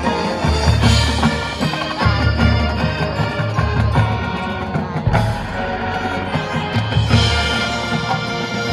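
High school marching band playing live: sustained brass and wind chords over repeated bass drum hits, with a sharp percussive accent about five seconds in.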